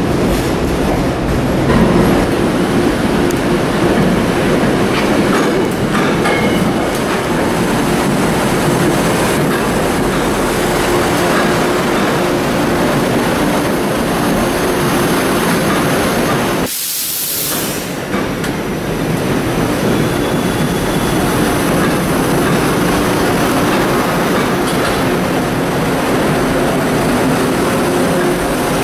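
Metro-North commuter train running past: a steady rumble of wheels on rail with a motor hum. There is an abrupt break about two-thirds of the way through, then the train noise goes on with a faint high squeal.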